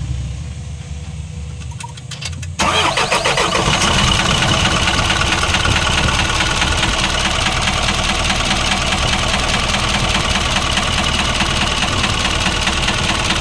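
Isuzu 4HL1 four-cylinder diesel engine: a low rumble, then it starts up suddenly about two and a half seconds in and runs loudly with a rapid knocking clatter (lagatak). The mechanic traces the knock to excessive play at one piston.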